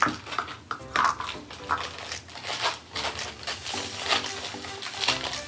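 Small plastic wrapper crinkling and rustling in the hands as a toy piece is unwrapped from its capsule, in quick irregular crackles.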